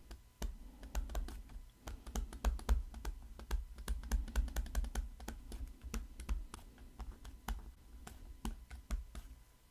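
Stylus tapping and scratching on a tablet screen as words are hand-written: a quick, irregular run of light clicks with dull low knocks beneath them, stopping shortly before the end.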